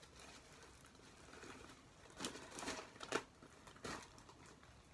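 Faint rustling and crinkling of a plastic highlighting cap as strands of hair are hooked and pulled through its holes, in a few short bursts about two to four seconds in.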